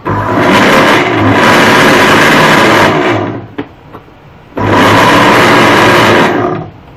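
Westpoint juicer blender's motor and blades run with the empty glass jug fitted, switched on and off in short bursts: it starts abruptly, runs about three seconds, stops, then runs again for about two seconds near the end. This is the test run after the worn drive coupling was replaced.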